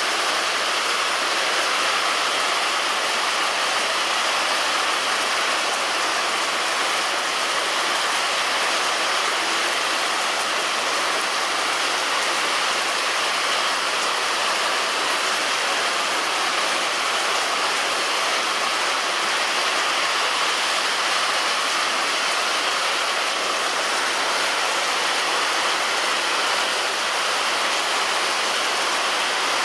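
Heavy rain falling on a roof, a dense, even hiss that holds steady throughout, with no thunder.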